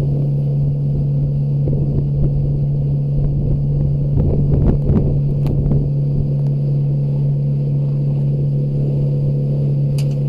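Engine of an aluminium center-console boat under way at a steady cruising speed: one even drone, with wind and water noise and a few knocks near the middle.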